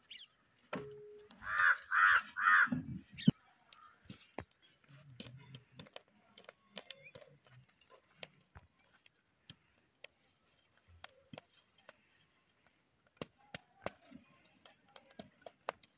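Scattered sharp ticks and crackles as potatoes are pushed into a smouldering fire's embers with a stick. About two seconds in, something calls three times in quick succession, louder than everything else.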